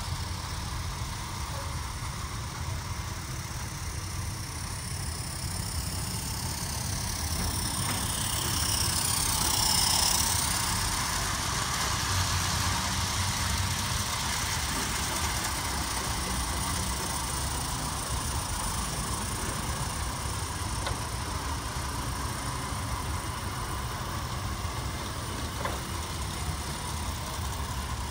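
Large-scale model train rolling past close by, its wheels running over the track joints. It grows louder to a peak about ten seconds in with a sweeping hiss as it passes, then fades back into a steady low rumble.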